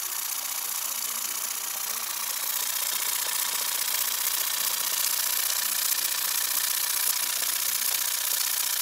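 Wilesco Robert Fulton toy steam engine running steadily: a continuous steam hiss over a fast mechanical patter, growing louder about two and a half seconds in.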